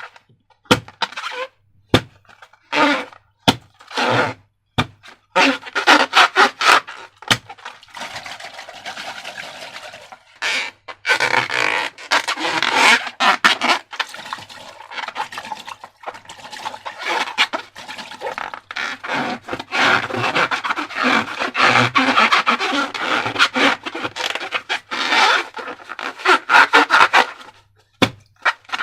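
Slime and rubber balloons being handled: several separate sharp clicks in the first few seconds, then nearly continuous sticky squishing and crackling.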